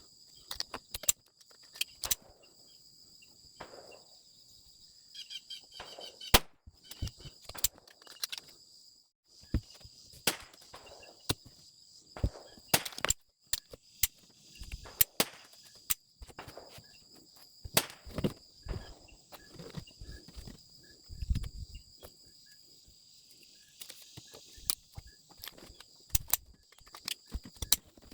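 Sharp .22 rimfire gunshots and clicks at irregular intervals from a modified S&W Victory pistol firing Norma Tac-22, with a steady high insect drone underneath.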